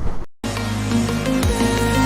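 Electronic outro music with a steady bass line, held notes and a falling bass drop. It starts just under half a second in, after a brief burst of road and wind noise from the ride cuts off abruptly.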